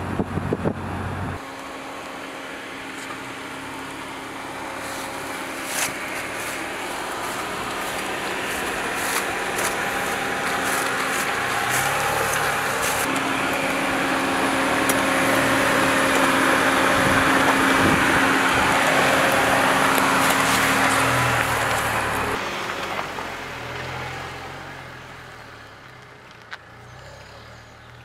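Dacia Duster SUV driving, its engine hum and tyre noise building slowly to a peak and then dying away over the last few seconds.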